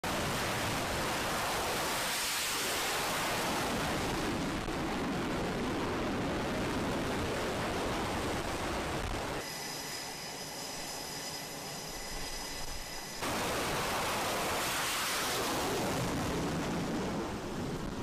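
Jet engine noise on an aircraft carrier flight deck: an F/A-18 fighter's engines at full power for a catapult launch, a loud, steady rushing noise. About halfway through it gives way for a few seconds to quieter deck ambience with steady high whines, then loud jet noise returns and swells as another launch goes.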